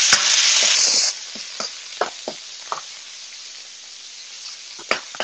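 Shrimp frying in hot oil in a wok: a loud sizzle that drops sharply about a second in to a quieter steady frying hiss. Scattered sharp clicks of metal tongs and spatula against the wok.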